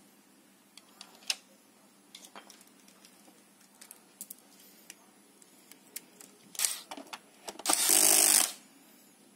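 Electric screwdriver driving a screw into the plastic base of a Dibea D900 robot vacuum: a short burst of whirring, then a louder steady run of about a second near the end. Before it, light clicks and taps of handling screws and parts.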